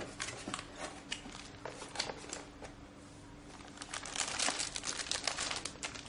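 Cardboard motherboard box being opened and the board's anti-static plastic bag crinkling as it is handled and lifted out, in a string of rustles and small clicks that gets busier in the last two seconds.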